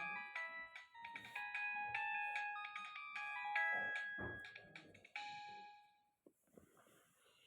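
Nokia 1265 mobile phone playing one of its ringtones: a quick melody of short electronic beeping notes that ends on a held note about five seconds in, then stops.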